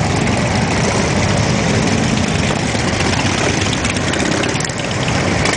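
A stream of cruiser and touring motorcycles rolling slowly past at low revs, many engines running together in one loud, steady mix.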